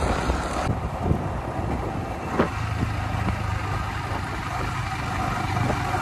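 Yamaha motorcycle engine running steadily while riding along a road, a low even hum that comes through more clearly about halfway through.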